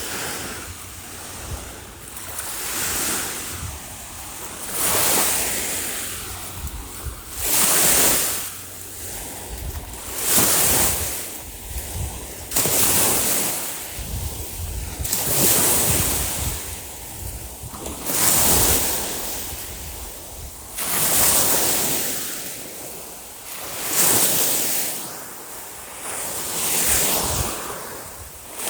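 Waves breaking on a beach, one swell of rushing surf every two and a half to three seconds, with wind buffeting the microphone.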